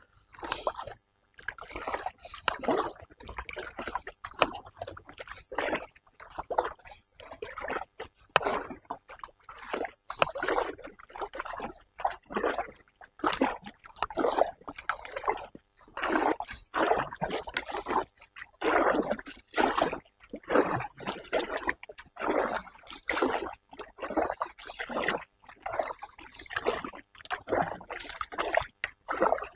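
Kayak paddle strokes: the blades dip and pull through the water in a steady rhythm, a splash and trickle of water a little over once a second.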